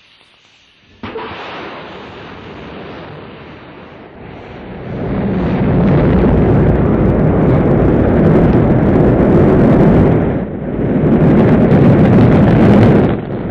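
Rocket launch: a sudden start about a second in, then a deep, noisy rumble that swells about five seconds in and stays loud, dipping briefly twice near the end.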